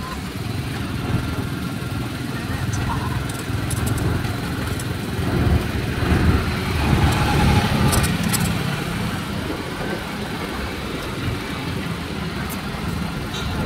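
Road traffic heard while riding along a city street: a steady rumble of car and motorbike engines and tyres, growing louder for a couple of seconds around the middle.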